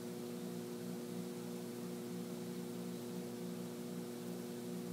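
Steady hum made of several held low tones over a faint hiss: the background drone of the room.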